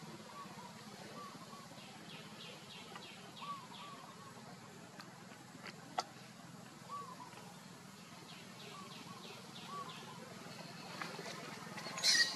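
Outdoor ambience with short chirping animal calls repeating every second or two, two runs of fast high ticking, a single click about halfway, and one sharp, high call near the end.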